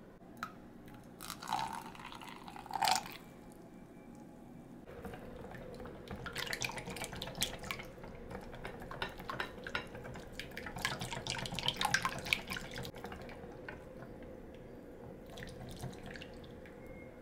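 Milk poured into an egg-and-oil batter in a bowl, with two short splashes. The mixture is then mixed by hand, the utensil clicking quickly against the bowl for several seconds.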